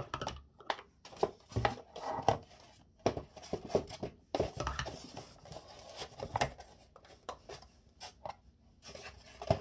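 Unboxing noises: a plastic toothbrush travel case and electric toothbrush handle knocking and scraping against a polystyrene foam insert, with irregular clicks and rustles.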